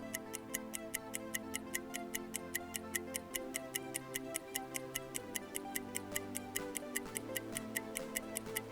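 Countdown timer sound effect: a clock ticking fast and evenly, about six ticks a second, over soft, sustained background music.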